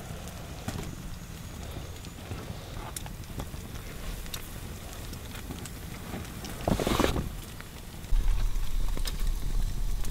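Plastic tarp rustling with scattered light knocks as a smoking teepee's tarp is pulled aside and meat on wooden sticks is handled, with one louder rustle about seven seconds in. A steady low rumble sets in about eight seconds in.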